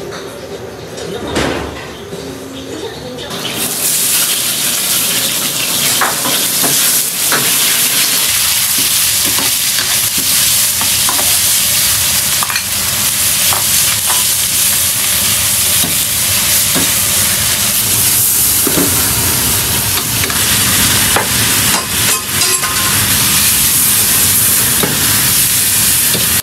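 Cabbage and sliced meat stir-frying in a wok over a gas flame: a loud, steady sizzle that starts about three seconds in, with the metal spatula scraping and clicking against the wok.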